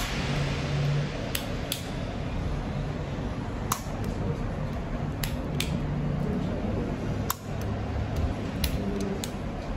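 Needle-free jet injector delivering local anaesthetic into the scalp: about eight sharp clicks at irregular intervals over a steady hiss.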